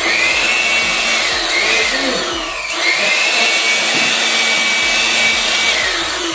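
Handheld corded electric air blower running at full speed, blowing dust off a concrete floor: a steady rush of air over a high motor whine. The whine sags briefly about halfway through, recovers, and drops away near the end.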